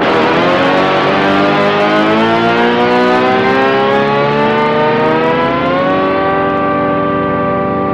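Distorted electric guitar played through an Electro-Harmonix Micro POG polyphonic octave generator, with added octave tones stacked on the note. A fresh note is struck, slides slowly upward in pitch for about six seconds, then is held.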